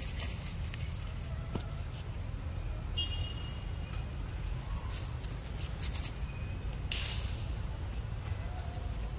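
Outdoor forest ambience: a steady high insect drone over a low wind rumble on the microphone. A brief high chirp sounds about three seconds in, and a short rustle of dry leaves, the loudest thing, about seven seconds in.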